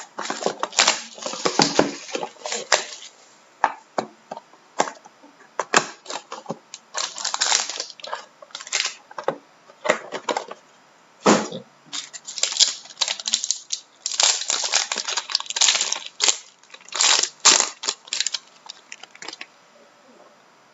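Trading card box and pack being handled and opened: irregular crinkling, tearing and clicking of wrapper and cardboard in clusters, dying away near the end.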